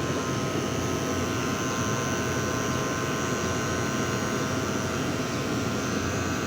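Split air-conditioner unit running, a steady mechanical whir with several steady high tones over it.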